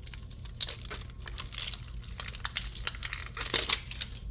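Packaging wrapper crinkling and being torn open by hand, a dense run of sharp crackles.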